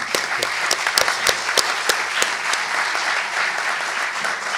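Audience applauding, with a few sharper single claps close by during the first couple of seconds.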